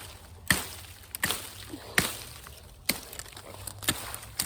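Sharp woody cracks and snaps of branches and brush, about one a second.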